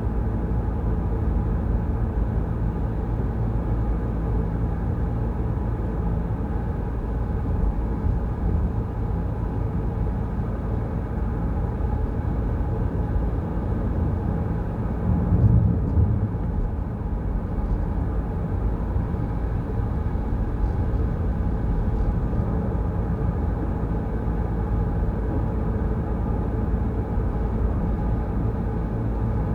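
Steady low rumble of a car driving, road and engine noise heard from a moving vehicle, with a brief louder rumble about halfway through.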